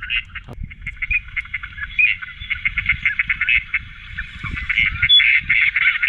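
Duck and goose calls played from an electronic caller to lure ducks to the decoys: a dense, rapid chatter of quacks and honks, with a low rumble underneath.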